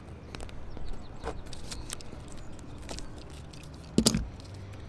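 Utility knife cutting a strip of butyl tape on its paper backing against a wooden board: small scratches and clicks as the blade drags through, then a louder knock and crinkle about four seconds in.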